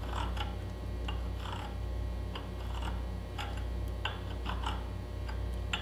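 Thread-chaser file scraping across the damaged threads on the end of an ATV spindle: irregular light metallic clicks and scrapes, two or three a second, as it dresses out burrs from the cross-threaded threads.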